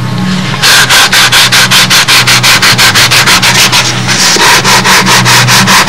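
Long hand sanding block rubbing sandpaper back and forth over a wing-mold plug, in quick even strokes about five a second, starting about half a second in.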